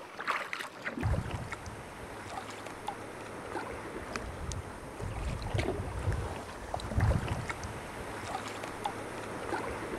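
Sea kayak on the water, starting about a second in: paddle splashes and scattered drips and ticks over a steady wash of water, with wind noise rumbling on the microphone and swelling now and then.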